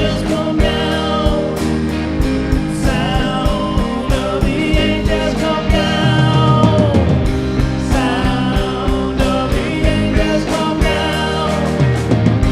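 Worship band playing a rock-style song: a steady drum beat with bass and guitars, and a wavering melody line over them.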